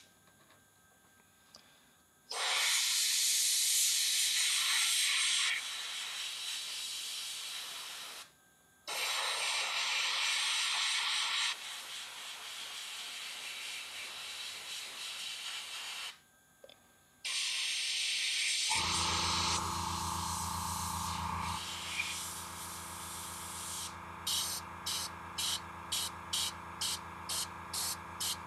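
Airbrush spraying paint in hissing bursts of a few seconds each, with short pauses between. About two-thirds through, a steady low motor hum starts. Near the end the air comes in quick short puffs, about two a second.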